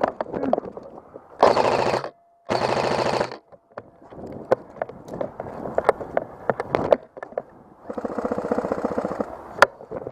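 Airsoft guns firing full-auto: two loud rattling bursts about a second and a half in, a fainter burst near the end, and scattered single clicks and cracks between them.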